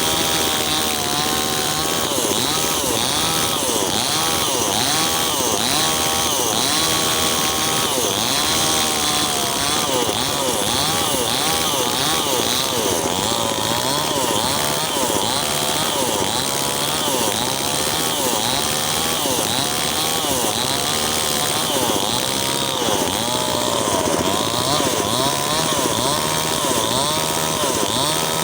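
Mini chainsaw cutting wood, its pitch dipping and rising again and again as the chain bites and eases off.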